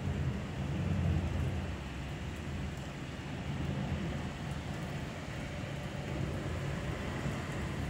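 Steady rain falling, with a low rumble of thunder dying away over the first couple of seconds.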